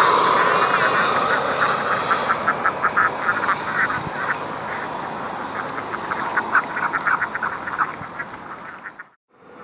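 An Airbus A320's jet engines on final approach fade away as the airliner flies off, and a rapid run of animal calls then takes over for several seconds. The sound cuts out abruptly about nine seconds in.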